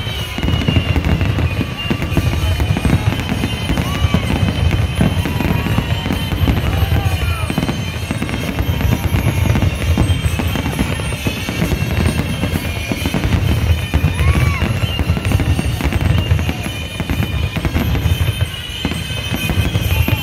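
Dense barrage of aerial fireworks: shell bursts booming in quick succession with hardly a pause, with a few brief whistles among them.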